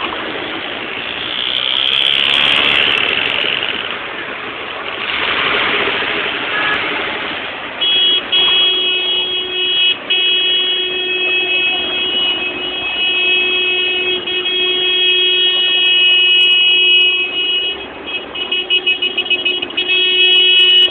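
Noisy street sound at first. About eight seconds in, a car horn starts a long, steady blast that holds for about ten seconds. It then breaks into a quick string of short toots, about five a second, and sounds steadily again near the end.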